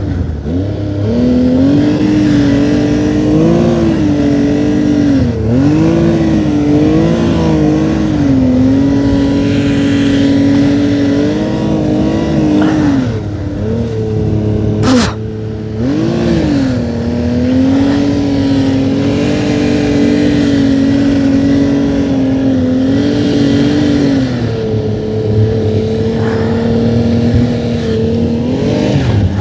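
Snowmobile engine running under throttle, mostly holding a steady pitch but dropping and climbing back several times as the throttle is eased off and reapplied. A single sharp click sounds about halfway through.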